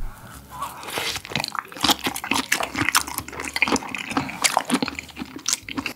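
Close-miked wet chewing of a mouthful of food: a rapid, irregular run of small smacks and clicks.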